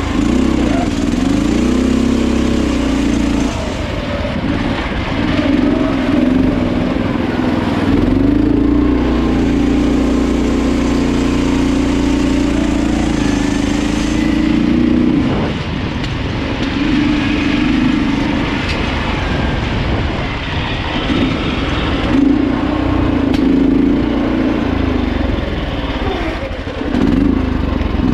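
Off-road riding lawn tractor's small engine running hard while driving. Its pitch swings up and down as it is throttled, holds steady for several seconds midway, then drops and comes back a few times.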